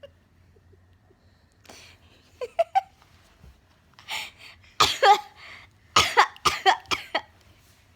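A mother and her 10-month-old baby coughing by turns, the baby copying her coughs. Short coughs come in small groups, ending in a run of four or five quick coughs about six to seven seconds in.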